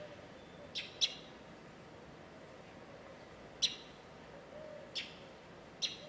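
Five short, sharp bird chirps: two in quick succession about a second in, then single ones at about three and a half, five and six seconds. Between them come faint, low coos that fit the Eurasian collared dove on the branch.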